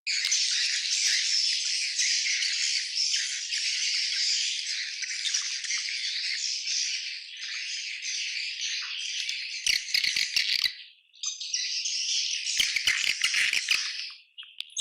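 Colony of edible-nest swiftlets calling together in a dense, continuous high-pitched twittering chatter. Two bursts of rapid sharp clicks come through the chatter about two-thirds of the way in and again near the end, with a brief drop-out between them.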